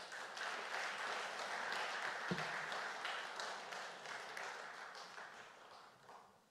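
Audience applauding, a dense patter of many hands clapping that tapers off and stops near the end.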